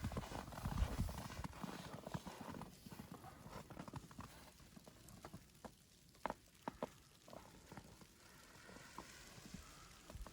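Footsteps crunching in fresh powdery snow, dense and loudest in the first couple of seconds, then thinning and fading, with a few sharp isolated clicks in the middle.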